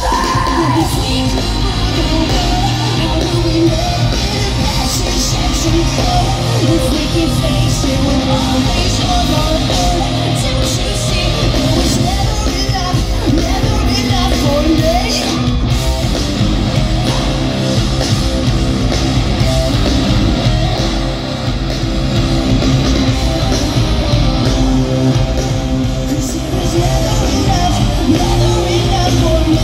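Rock band playing live: amplified electric guitars, bass and drum kit with a male singer's vocals over them.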